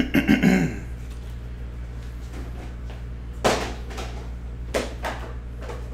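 A brief rustle of handling noise at the start, then two sharp knocks about a second apart, over a steady low hum.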